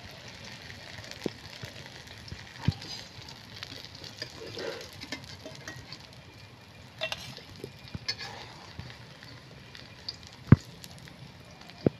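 Oil sizzling steadily in a steel kadai as ash gourd pakoras deep-fry and are lifted out with a metal slotted spoon. A few sharp metal clinks of the spoon against the pan, the loudest about ten seconds in.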